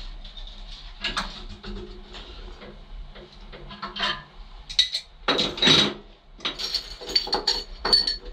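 Metal hand tools clinking and knocking as an adjustable spanner is worked on pipe fittings and tools are picked from among others. A series of clicks and clanks, with a louder clatter about five and a half seconds in and quick, ringing metallic clinks near the end.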